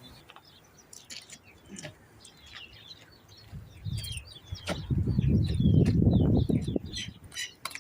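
Small birds chirping in quick short calls throughout, with a louder spell of low rustling noise from about five to seven seconds in.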